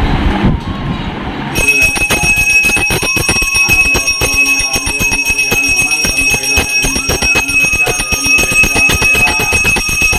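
Brass puja hand bell rung rapidly and without a break for aarti, starting about one and a half seconds in. It gives a steady high ringing tone over fast, even clapper strikes.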